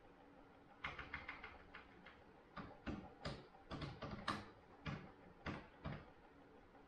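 A run of about a dozen sharp, irregular clicks and taps over about five seconds.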